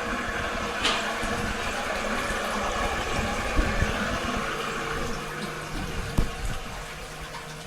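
Japanese toilet flushing, a steady rush of water that fades over the last few seconds, with a couple of light knocks.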